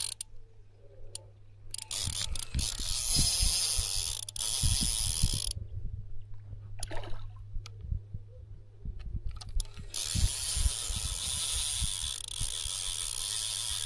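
Fishing reel ratcheting in stretches as a carp is played on the rod, with a pause of a few seconds in the middle.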